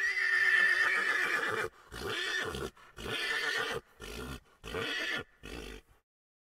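A horse whinnying: one long, loud, high call of nearly two seconds, then five shorter, quieter calls that stop about six seconds in.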